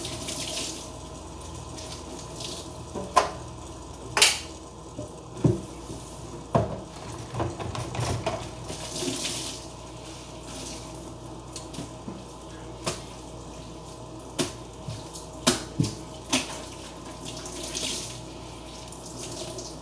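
Kitchen faucet running into a sink during a cleanup, with a dozen or so sharp knocks and clinks of dishes or utensils being handled in it.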